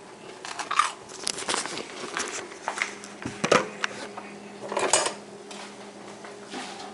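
Kitchen utensils and dishes clinking and scraping in a string of irregular clatters, the loudest about three and a half and five seconds in, while a grilled cheese sandwich is handled. A faint low steady hum runs underneath.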